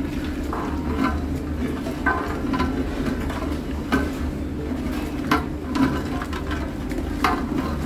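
Long metal spoon stirring a thickening milk-and-flour curry in a pot, with a few sharp knocks and scrapes of the spoon against the pot, over a steady low hum.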